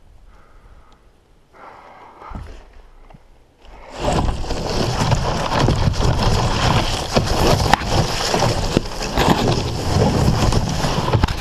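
A few seconds of faint rustling, then about four seconds in a sudden, loud, continuous crashing and rustling of dry brush and clothing, with many sharp cracks, as someone pushes quickly through undergrowth on foot.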